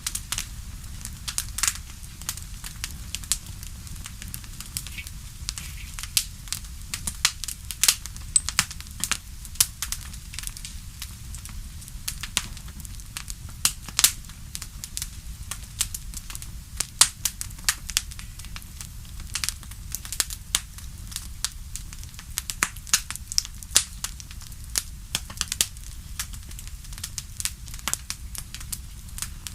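Fireplace fire crackling, with frequent irregular sharp pops and snaps over a steady low rumble.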